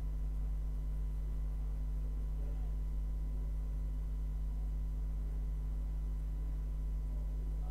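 Steady low electrical hum with fainter higher overtones, unchanging throughout.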